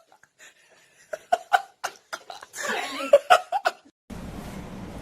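A person laughing in short bursts, then in a longer run of breathy, pitched laughter. About a second before the end it gives way to a steady low hiss.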